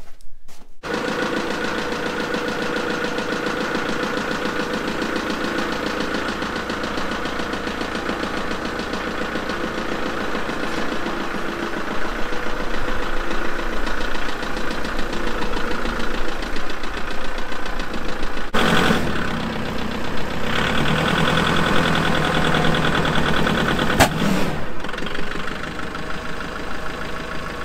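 Kubota MX5800 compact tractor's diesel engine running, louder and rougher through the second half with a sharp click near the end: it is running poorly, "didn't sound good", because a red squirrel's nest was packed under the hood.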